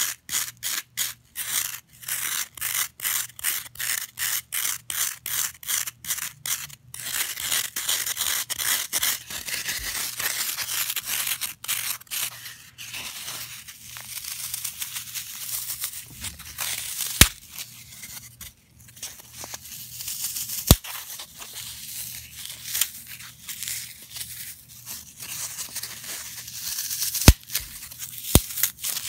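Fingernails scratching green floral foam in quick, even strokes, about three a second, then a denser rasping scrape. Later the scratching turns quieter and softer as the foam is crumbled between the fingers, with a few sharp clicks.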